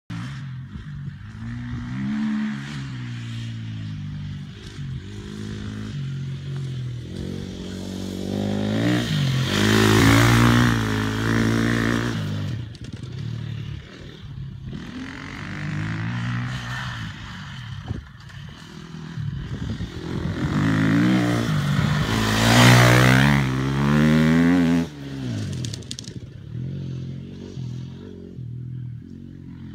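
Off-road motorcycle engine revving up and down repeatedly as it rides a dirt track, its pitch rising and falling over and over. It grows loudest twice, about ten seconds in and again a little after twenty seconds, then fades away.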